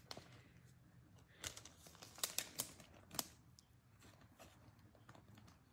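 Faint rustling and crinkling of a clear plastic card sleeve, with a handful of light clicks, as a trading card is slid into it. Most of the crinkles come together between about one and a half and three seconds in.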